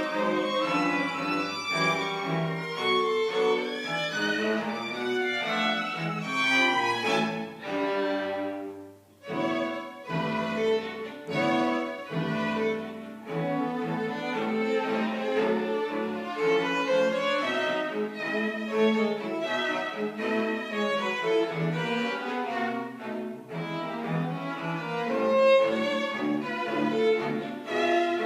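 String quartet of two violins, viola and cello playing live, several bowed lines sounding together. The music briefly drops away about eight seconds in, then starts again.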